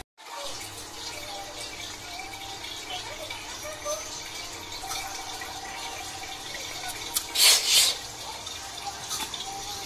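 Steady sound of running water, with a short, louder rush of noise about seven and a half seconds in.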